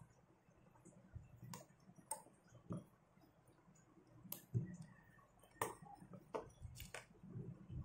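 Faint, irregular light clicks and taps of a small metal pick working inside a spinning reel's spool as the drag washers are prised out, about seven or eight separate clicks.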